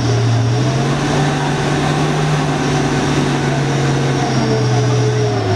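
A loaded truck's diesel engine running hard, with a steady low drone, as the truck labours with its rear wheels sunk in a deep rut of soft mud. The engine note rises slightly just after the start and drops back near the end.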